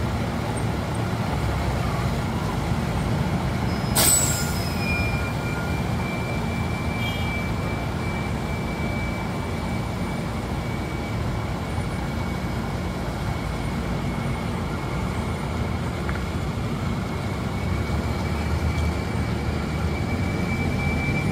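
Diesel bus engine running at a steady low rumble, with one sharp blast of compressed air from its air brakes about four seconds in. A thin, steady high tone starts just after the blast and holds on.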